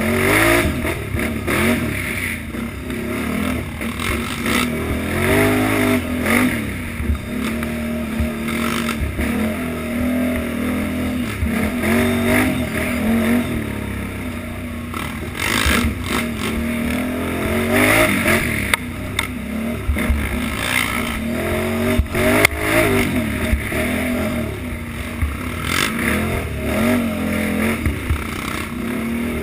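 Utility ATV engine revving up and falling back again and again as it is ridden hard over a rough trail, with scattered knocks and clatter from the machine over bumps.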